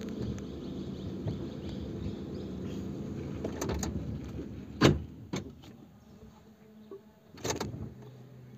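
A small car's engine running steadily, heard from inside the cabin as the car crawls over a rocky, potholed dirt track. A few sharp knocks and clunks come from the car jolting over stones, the loudest about five seconds in, and the engine sound grows quieter in the second half.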